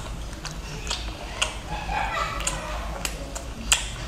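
Close-miked eating: wet mouth clicks and lip smacks, several spread out over a few seconds, as octopus is chewed.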